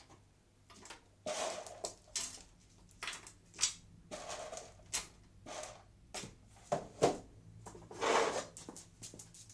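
Beagles at feeding time sniffing and snuffling in a run of short, noisy bursts, with two sharp knocks about two-thirds of the way in, the second the loudest sound.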